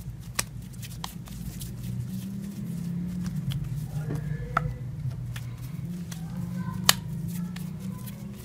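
Hands shaping soft dough into balls on a floured wooden board: a handful of sharp taps and clicks, the loudest near the end, over a steady low hum.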